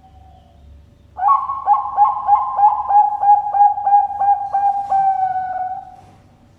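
Zebra dove (Bangkok perkutut) cooing its song: one phrase of about a dozen quick notes, roughly three a second, starting about a second in and ending in a longer held note.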